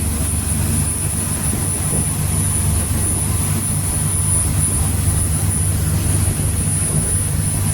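Fishing boat's engine running steadily under way, a constant low drone mixed with wind and water noise.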